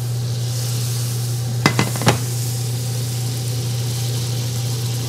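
Butter foaming and sizzling in a hot cast iron skillet, a steady hiss over a low hum, with three sharp clicks a little under two seconds in.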